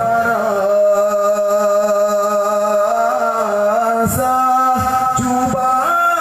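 A man singing a qasidah, an Islamic devotional song, into a handheld microphone. He holds one long note for about four seconds, then moves through shorter, ornamented notes.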